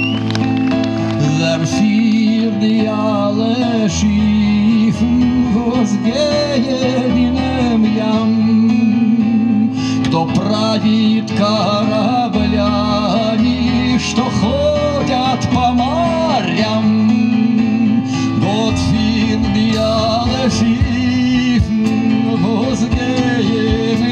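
Small live band playing: plucked upright double bass, electric keyboard and cajon, with a wavering lead melody over a steady bass line.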